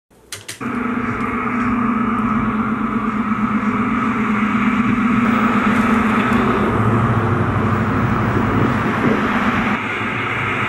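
Road traffic: a steady rush of vehicles passing on the road, with a deeper engine sound between about seven and ten seconds in.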